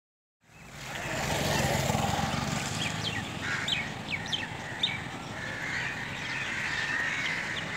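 Outdoor ambience starting about half a second in: a steady low rumble and hiss with birds chirping in short, quick calls, most of them in the middle of the stretch.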